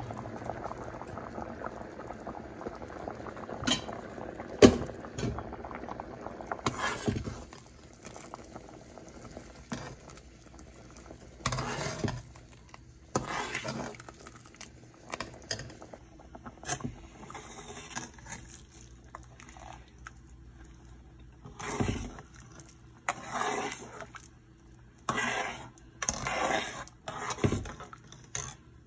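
Metal spoon stirring a pot of simmering rice and brown beans, with repeated scrapes and clinks against the metal pot and liquid sloshing between strokes. A sharp knock about five seconds in is the loudest sound.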